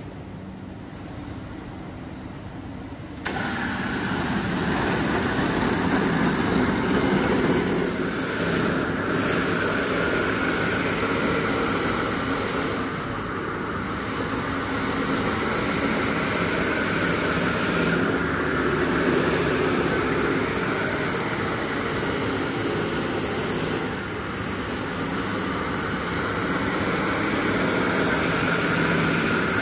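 Rug-cleaning machinery running steadily. It jumps suddenly much louder about three seconds in, then holds steady.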